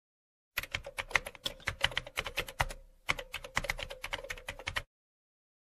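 Computer keyboard typing sound effect: rapid key clicks, about eight a second, with a short break about halfway, stopping shortly before the end.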